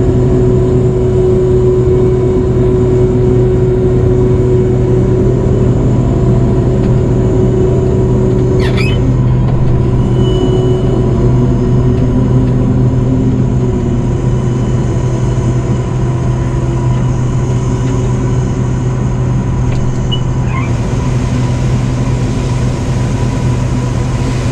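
Combine harvester running steadily in corn: a loud, constant engine and threshing drone with a low hum. There is a brief squeak about nine seconds in and a short high beep about ten seconds in.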